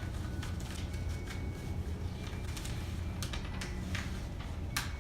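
A steady low hum with a few faint, short clicks and taps scattered through it, like small objects being handled.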